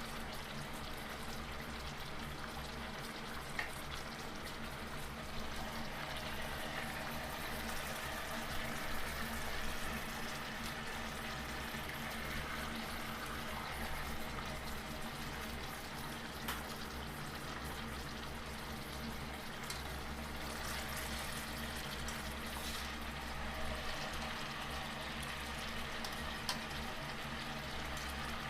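Samosas frying in hot oil: a steady sizzle with a few small pops.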